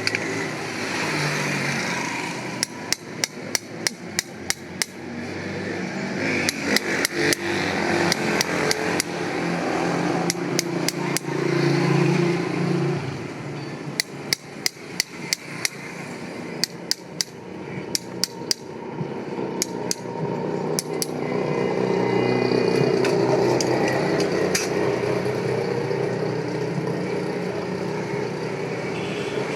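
Farrier's hammer strikes in quick runs of about four blows a second, several runs separated by short pauses. The strikes stop for the last several seconds, leaving a steady background noise.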